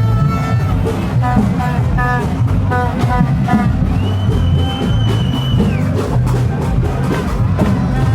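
Carnaval street band drumming steadily with people singing over it. A long high note is held for about two seconds in the middle.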